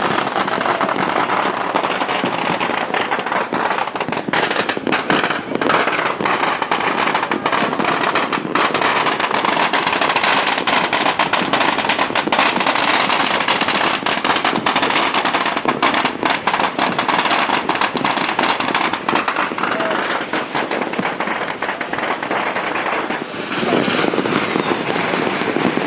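Dense, unbroken barrage of firecrackers and fireworks: rapid crackling strings of bangs with sharper, louder reports mixed in. It eases briefly near the end, then picks up again.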